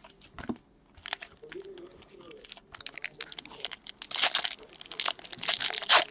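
Foil hockey card pack wrapper being torn open and crinkled by hand: a rapid run of crackles that grows louder toward the end.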